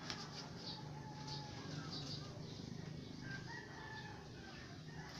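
Rooster crowing: two drawn-out calls, the second higher than the first, with short high chirps around them.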